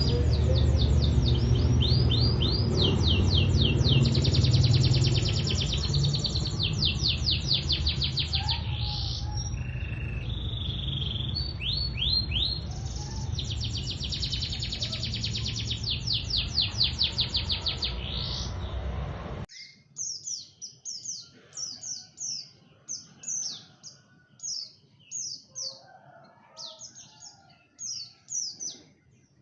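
Songbird singing fast runs of rapidly repeated high notes over a loud low rumble. About two-thirds of the way through the rumble cuts off abruptly, and a bird goes on with short, sharp chirps in quick series separated by brief pauses.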